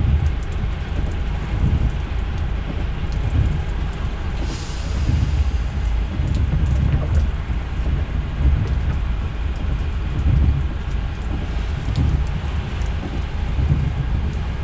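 DAF truck's diesel engine running with a low, uneven rumble, heard from inside the cab, with a short hiss about four and a half seconds in and scattered light ticks.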